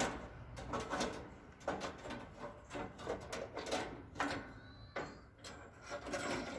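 Sawmill band blade and its guard covers being handled while the blade is taken off: a string of sharp metallic knocks and clatters with scraping between them.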